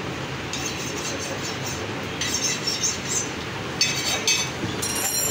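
Meat cleaver being honed with a steel rod: a run of short metal-on-metal scraping strokes with a bright ring, over a steady background hum.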